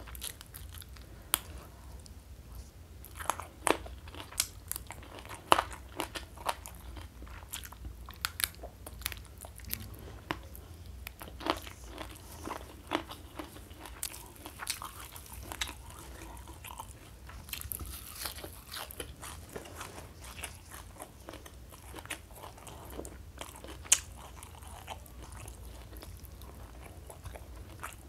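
Close-miked chewing and biting of a hand-fed mouthful of rice, fish and raw greens, with irregular sharp crunches and wet mouth clicks. A few louder crunches come about five seconds in and again near the end.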